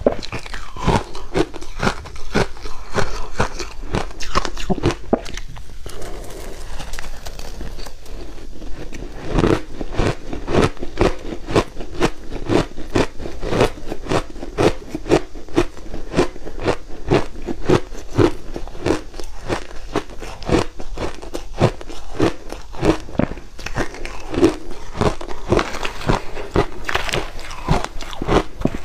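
Close-miked crunching of big mouthfuls of crushed ice being bitten and chewed: a rapid, unbroken run of crisp crunches.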